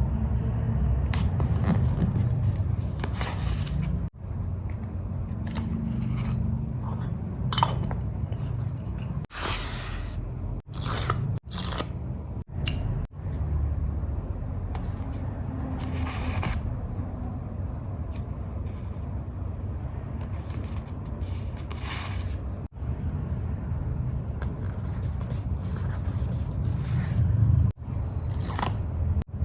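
Close-miked paper-journaling sounds: paper being handled, rubbed and scraped, with short swishes every few seconds over a steady low handling rumble. The sound drops out briefly several times.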